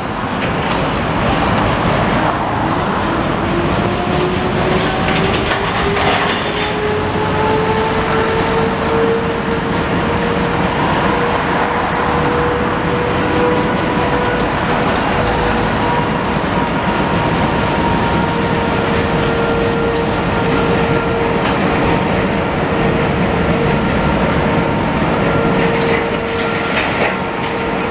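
A machine whine over a steady, loud rumble of engines. The whine climbs in pitch over the first several seconds, then holds level.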